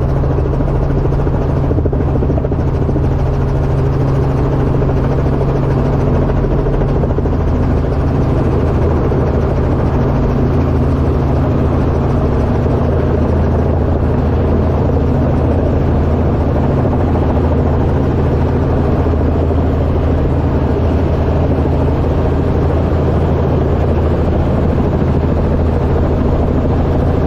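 Helicopter in flight, its engine and rotor running steadily at an even level.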